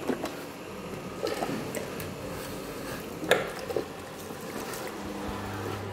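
Tap water running onto hands and into a sink during hand washing, with a few soft clicks and squelches of foam soap.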